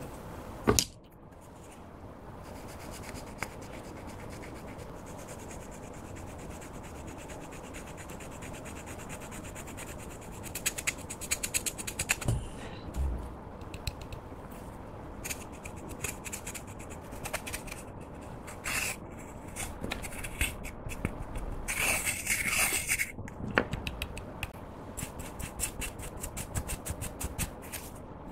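Fingers scraping and crumbling pressed pink eyeshadow powder out of a small plastic compact: a run of short, scratchy scrapes and ticks over a faint steady hiss, with a sharp click near the start.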